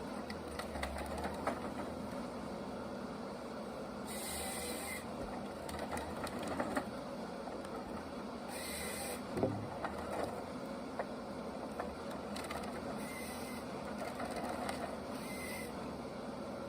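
Forestry harvester working in the woods: a steady machine din, with short hissing bursts every four seconds or so.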